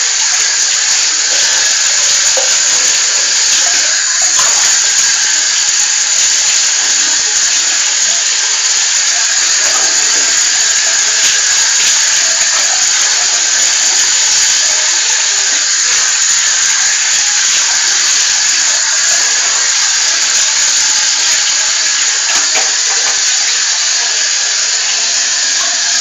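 Running water in a steady, unbroken hiss, washing a dog in a tiled bathroom.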